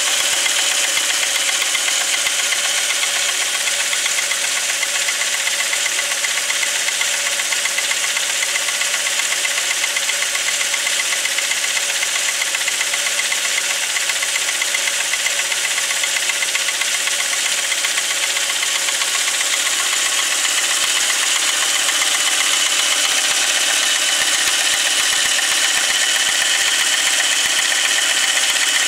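Volkswagen Passat B5's VR5 five-cylinder petrol engine running steadily with a knock in it whose cause the owner is trying to find.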